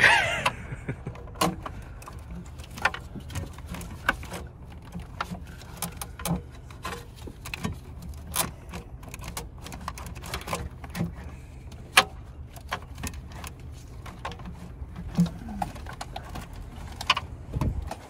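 Intake manifold and its intake ducting knocking and clicking against the engine as it is worked loose by hand, with irregular sharp knocks over a steady low rumble.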